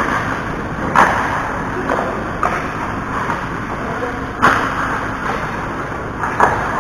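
Ice hockey play on a rink: a steady hiss of skates and arena noise, broken by four sharp knocks of sticks, puck or boards. The loudest knocks come about a second in and again past the middle.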